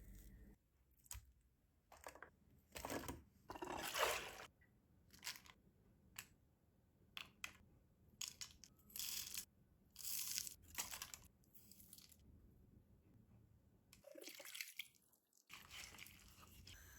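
Faint kitchen handling noises during food preparation: a dozen or so short, irregular scrapes and rustles with quiet gaps between them.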